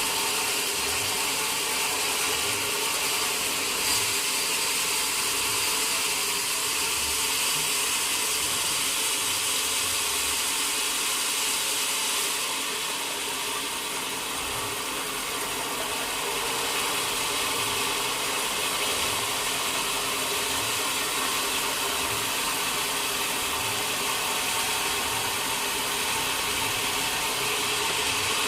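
Sawmill saw machinery running steadily through mahogany work, a constant mechanical noise with a slight dip in level about halfway through.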